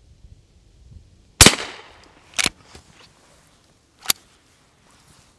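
A single shot from a Henry H001 lever-action .22LR rifle firing a CCI .22LR shotshell of No. 12 shot, a sharp crack with a short ringing tail about a second and a half in. Two sharper, quieter clacks follow about one and two and a half seconds later, the rifle's lever being worked.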